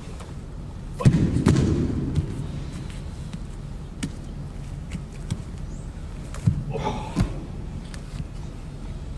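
Bodies and bare feet thudding on a sports-hall floor during karate partner work: one loud thump about a second in that rings on in the hall, then near the end two sharp knocks with a short shout between them as the partner goes down.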